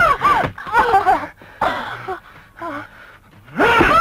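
A person's wordless cries and gasps, in short bursts whose pitch slides up and down. They are loudest in the first second and again near the end, with quieter stretches between.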